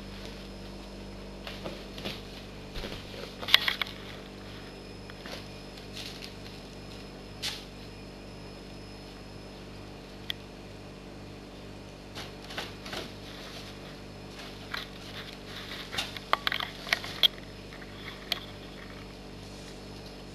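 Clear plastic bag crinkling and rustling in irregular bursts as a cat pushes and paws through it, loudest about three and a half seconds in and again in a flurry from about fifteen to seventeen seconds in. A steady low hum sits underneath.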